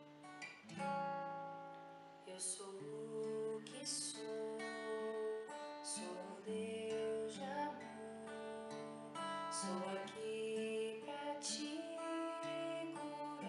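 Acoustic guitar strummed and picked, with a young woman's voice singing a Portuguese-language Catholic worship song over it. The guitar plays alone at first, and the voice comes in a couple of seconds in.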